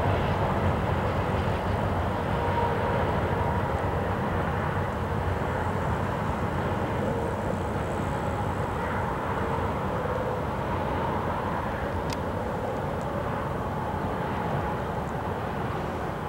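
Double-stack intermodal freight train rolling away on the rails, a steady rumble that slowly fades as the last cars recede.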